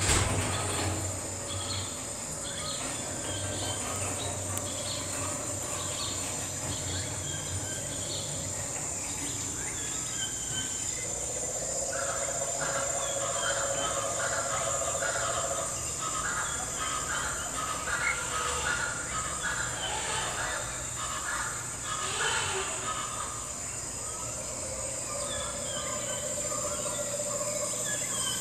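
Bird calls, many short chirps, over a steady high insect chirring, with a longer held lower call about a third of the way in and again near the end.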